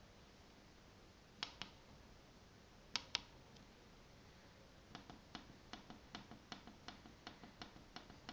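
Fingertip clicks on a 12-key membrane keypad as time is keyed in: two pairs of sharp clicks, the louder pair about three seconds in, then a quick, even run of about three presses a second from about five seconds in.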